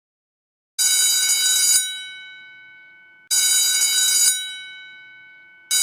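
A bell-like ringing sound repeating about every two and a half seconds, each ring bright for about a second and then dying away, starting about a second in.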